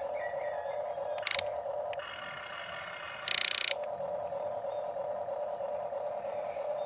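Huina radio-controlled toy excavator's small electric motors and plastic gearboxes whining steadily as the arm and bucket move. There is a short, louder grinding burst about a second in and a longer one at about three and a half seconds.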